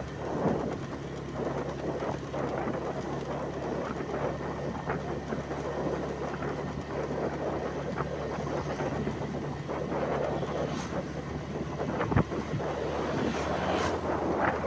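Steady running noise of a moving vehicle with wind on the microphone, with a few sharp knocks near the end.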